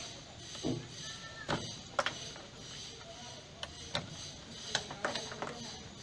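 Plastic wire-harness connectors being unplugged from an LG washing machine's electronic control board: a scattering of small clicks and knocks, about half a dozen in all.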